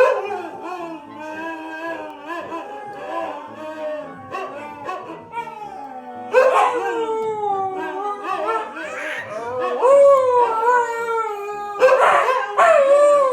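A dog howling: long drawn-out howls that waver and slide down in pitch, starting again several times.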